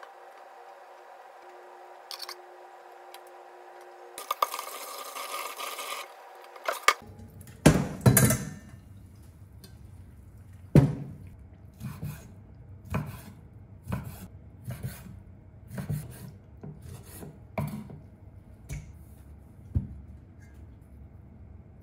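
Kitchen utensils and dishes being worked: a run of sharp knocks with short scrapes, about one a second. Before them there is a steady hum and a brief hiss.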